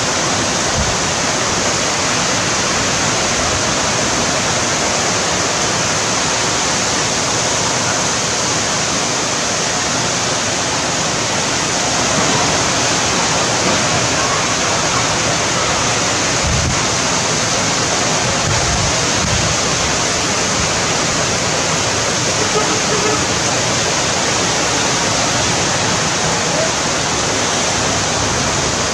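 Heavy downpour: rain pouring down in a steady, dense hiss, with a few brief low thumps a little past the middle.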